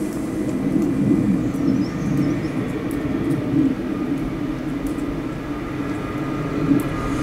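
Matterhorn Gotthard Bahn train running with a steady low rumble, with a few faint high squeaks about two seconds in.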